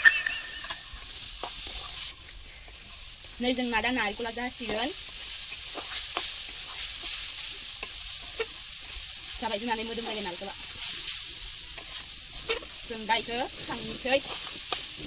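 A metal spatula stirring and scraping grated coconut and semolina as they roast in a steel kadai, with frequent short scraping clicks against the pan over a steady soft sizzle.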